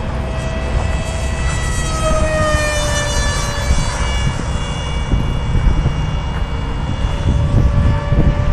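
Electric motor and propeller of a 4-foot RC flying wing, about 700 W on a 4S LiPo, whining at full power as it flies past, its pitch falling as it goes by about two to three seconds in, then holding steady. Wind rumbles on the microphone underneath.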